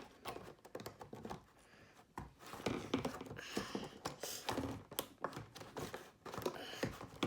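Plastic Beyblade parts clicking and clattering irregularly as they are handled and snapped together.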